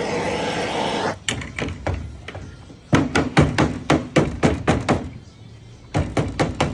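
Gas blowtorch flame hissing steadily, cut off about a second in. Then a dressing tool taps code 8 lead sheet in quick runs of blows, about four or five a second, with a short pause near five seconds in.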